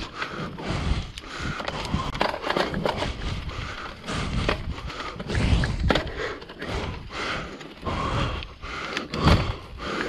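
Trek mountain bike riding over a dirt and leaf-litter singletrack: tyres crunching on the trail, with frequent irregular clatters and knocks as the bike rattles over bumps. Wind rumbles in gusts on the microphone.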